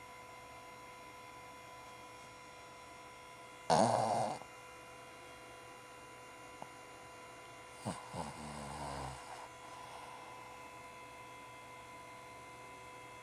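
A Cavalier King Charles Spaniel snoring in her sleep: two loud snores about four seconds apart, the first the louder, over a faint steady hum.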